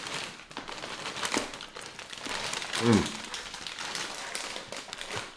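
Crinkling of a foil Doritos chip bag as a hand rummages in it. A short falling vocal sound comes about three seconds in.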